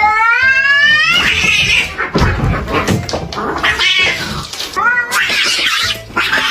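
Two cats fighting, caterwauling. A long rising yowl gives way to harsh, noisy screeches as they scuffle, and a shorter rising yowl comes about five seconds in.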